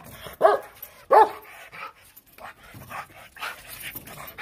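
Mixed-breed guard dog barking aggressively: two loud barks about half a second and a second in, then fainter sounds.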